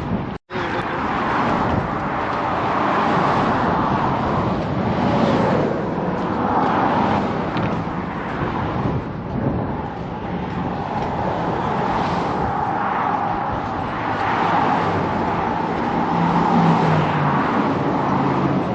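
Steady road-vehicle noise: cars running with a continuous rushing sound and a faint low engine hum near the end. The sound cuts out completely for a moment about half a second in.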